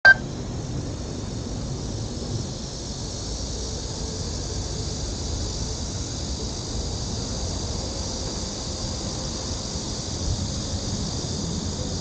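Steady outdoor ambience in an open city plaza: a continuous high hiss over an uneven low rumble, with a short sharp beep at the very start.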